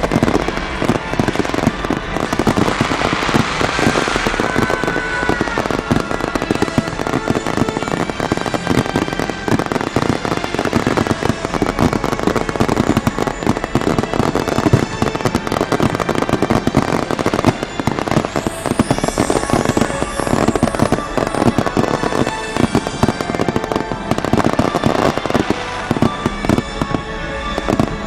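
Aerial fireworks display going off continuously in a dense barrage of bangs and crackling. A few whistling rockets come about three to five seconds in, and high chirping crackles follow near two-thirds through.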